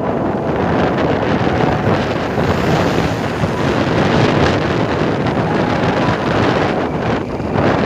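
Wind buffeting a phone's microphone as it moves along a road on a vehicle, a loud, steady rush of noise.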